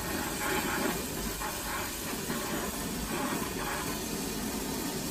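Glassblowing bench torch flames hissing steadily while glass rod is worked in the flame.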